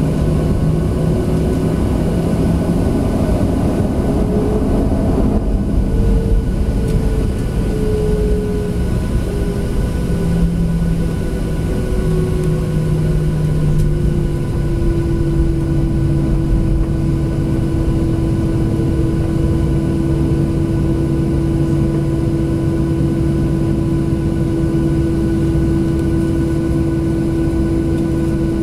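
Cabin noise of a Boeing 737-700 taxiing: the CFM56 jet engines run at low taxi power as a steady hum. Its pitch wavers a little over the first half, then holds steady.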